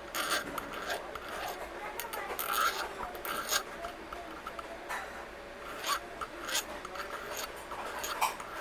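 Metal being filed or abraded by hand on a small silver jewellery piece: irregular scraping strokes that go round the piece in a circular motion.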